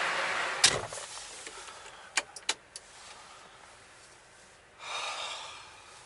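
Semi-truck cab door shutting with a heavy thud about half a second in, cutting off the outside noise. A few light clicks follow, then a short hissing swell near the end.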